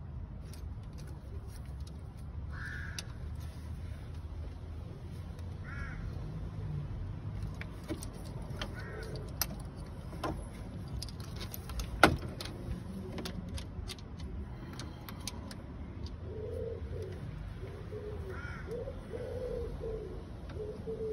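Birds calling: a low, repeated cooing through the last five seconds and short, harsher calls every few seconds. Scattered clicks and knocks come from hand work on the car's engine bay, the sharpest about twelve seconds in.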